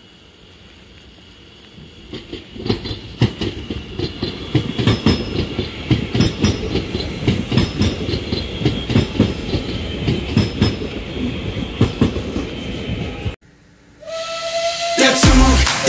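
Red DB Regio multiple unit approaching and passing at speed, its wheels clattering rapidly over rail joints and points, with a steady high whine. The sound cuts off suddenly near the end, and pop music starts in the last second.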